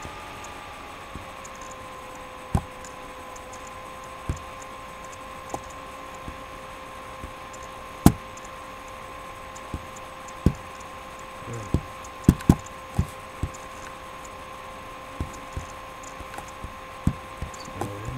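Scattered sharp clicks and knocks at uneven intervals, the loudest about eight seconds in and a cluster around twelve seconds, over a steady hum that settles slightly lower in pitch in the first two seconds.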